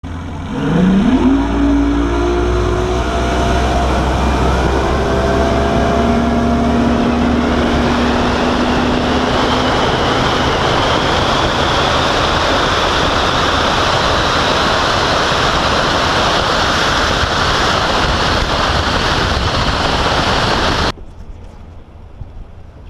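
Bass boat's outboard motor revving up as the boat gets under way, then running steadily at speed under loud wind and water rush. Near the end the sound cuts suddenly to much quieter wind on the microphone.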